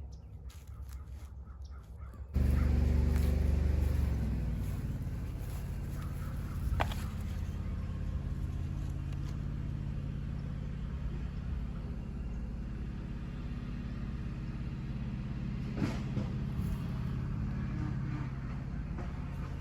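An engine running steadily with a low hum, starting abruptly about two seconds in.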